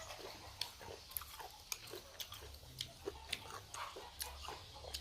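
A person chewing raw lime into the microphone: irregular crunches and mouth clicks, a few a second.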